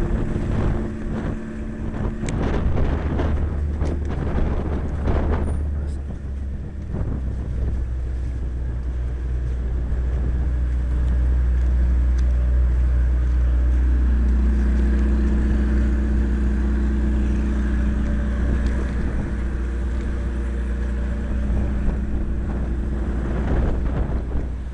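Steady low hum of a motor vehicle's engine running close by, with a few knocks in the first six seconds.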